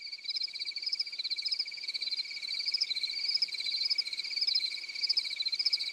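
Edited-in sound effect of a night chorus of chirping crickets and frogs. A steady high pulsing trill runs under quicker repeating chirps, and it cuts in and out abruptly in place of the store sound.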